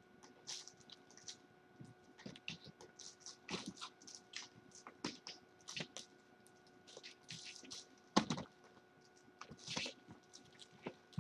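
Kittens scampering and clambering, with irregular light clicks, scratches and rustles of claws and paws on fabric and a play structure, and one louder thump a little past eight seconds in. A faint steady tone runs underneath.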